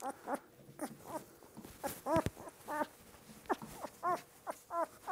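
Two-week-old Belgian Malinois puppy whimpering in a rapid series of short, high squealing cries, each rising and falling in pitch, while being held for a dose of dewormer.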